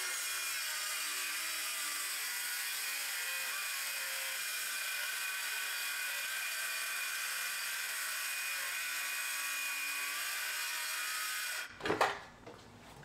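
Ryobi cordless circular saw running steadily with a constant whine as its blade cuts through a sheet of plywood. The saw stops abruptly near the end, followed by a sharp clunk.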